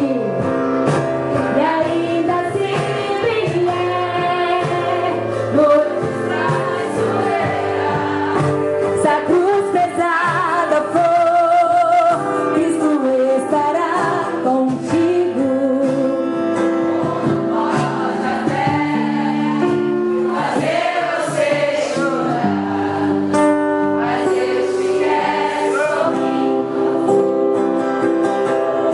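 Gospel song with several voices singing over held instrumental chords.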